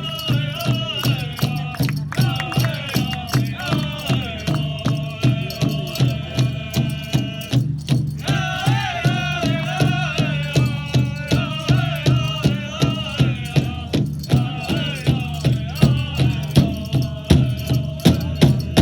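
Powwow drum group singing over a steady, even drumbeat, the voices rising and falling together.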